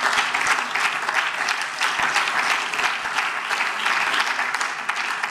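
Applause from a group of legislators seated in a parliamentary chamber: many hands clapping together in a dense, steady patter that thins toward the end.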